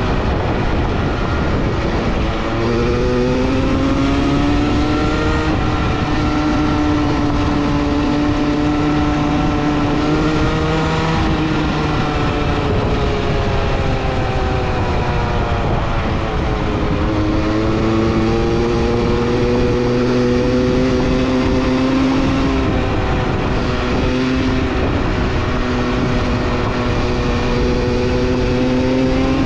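A motor vehicle's engine running hard, its pitch holding fairly steady, with two sharp drops in revs (about two seconds in and about halfway) that climb back up each time.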